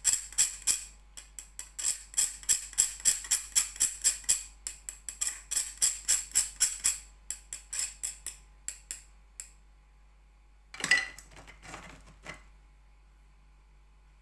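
Fine-mesh metal sieve being tapped and shaken to sift flour into a glass bowl: a quick, even rattle of about four to five taps a second that stops about two-thirds of the way through. A short clatter follows as the sieve is put down.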